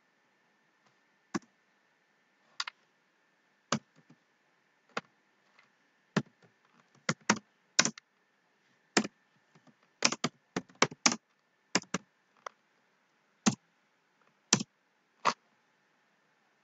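Computer keyboard being typed on: separate sharp key clicks at an uneven, unhurried pace, coming faster and closer together around the middle.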